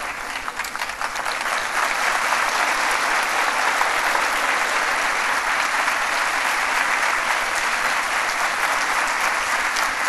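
Audience applauding, a dense steady clapping that swells over the first two seconds and then holds.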